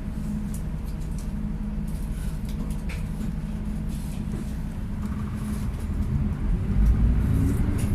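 Steady low rumble of a moving vehicle, with a low hum in it, swelling louder about six seconds in.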